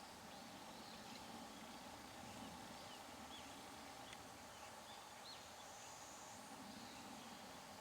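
Near silence: faint outdoor background hum with a few brief, faint, high bird chirps scattered through.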